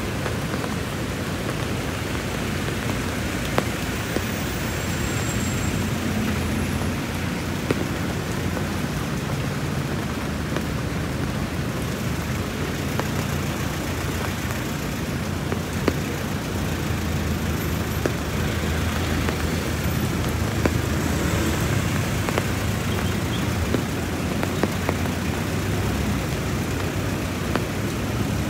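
Steady rain falling, with road traffic running by under it.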